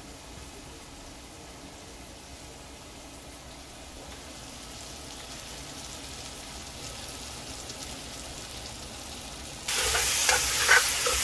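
Curry masala with green mango and sijan (drumsticks) sizzling quietly as it fries in an aluminium pan, slowly getting louder. Near the end the sizzle jumps much louder and a spatula scrapes and stirs through the pan in short strokes.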